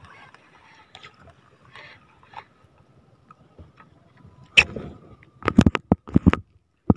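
Faint whir of a spinning reel (KastKing Royale Legend II) winding in line as a small fish is reeled to the surface. About four and a half seconds in come several loud sudden knocks and splashes as the fish is lifted from the water.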